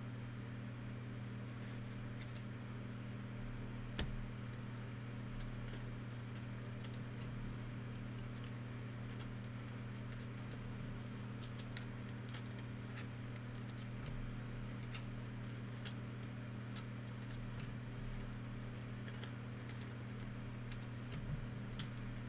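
Trading cards being handled and sorted: faint, irregular small ticks, snaps and rustles, a sharper snap about four seconds in, over a steady low hum.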